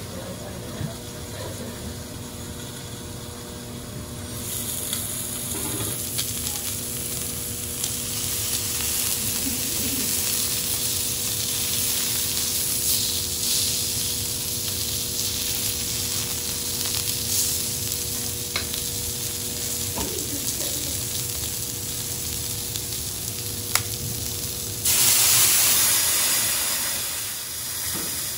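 Olive Wagyu fillet steak pieces sizzling on a teppanyaki steel griddle, with a few light clicks of knife and fork against the hot plate. The sizzle grows louder a few seconds in and swells briefly into a stronger hiss near the end.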